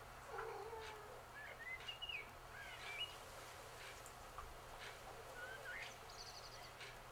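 Small birds chirping faintly, a string of short calls that glide up and down, with a quick trill near the end, over a faint steady low hum.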